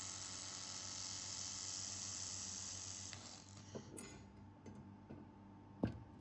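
2000 W handheld laser welder with wire feeder welding 4 mm mild steel: a steady hiss that stops about three seconds in as the weld ends. Afterwards a few faint clicks and a sharp knock near the end as the steel piece is handled.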